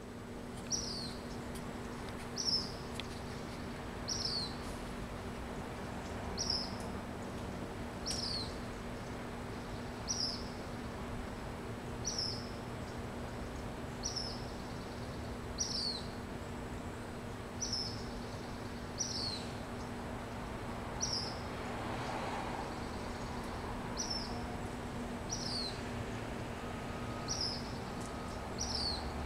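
A bird calling over and over, one short high note sliding downward, repeated about every second and a half to two seconds, over a steady low hum.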